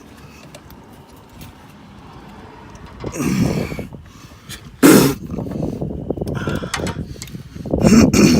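Hand tools working a seized starter bolt from under a truck: a sudden sharp clank about halfway through, then quick metallic clicking and rattling of the wrench and socket, growing louder near the end.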